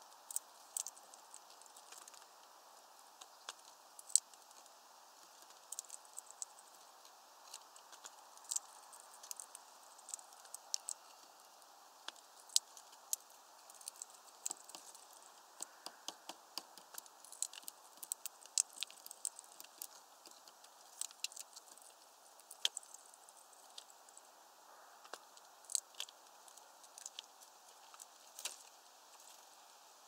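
A hawfinch cracking and handling sunflower seeds on a tray feeder: irregular sharp clicks and taps of bill on seed and of seeds and husks on the tray, sometimes in quick runs of several.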